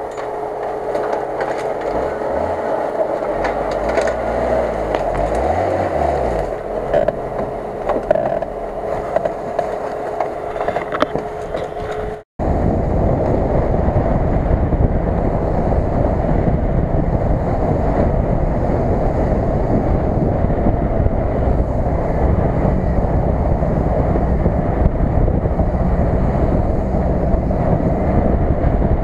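Jeep Cherokee engine revving up and down as the off-roader works through snowy brush, with a steady whine alongside. After an abrupt cut about twelve seconds in, a steady rush of vehicle driving noise follows as it is driven along a snowy field track.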